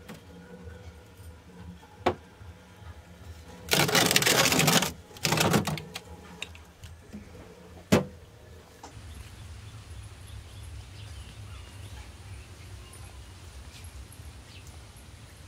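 Refrigerator freezer compartment being opened and handled: a faint click about two seconds in, a loud rattling clatter around four seconds and again just after five, and a sharp clack near eight seconds. After that only a steady low background.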